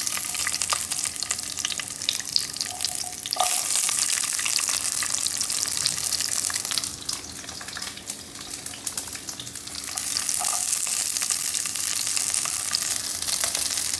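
Onion pieces sizzling in hot mustard oil in a karahi: a dense frying hiss with many small crackles that weakens in the middle and grows louder again about ten seconds in.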